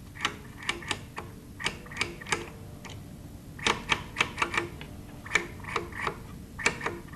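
Irregular sharp clicks and clacks of small hard parts, some single and some in quick clusters of three or four, over a low steady hum.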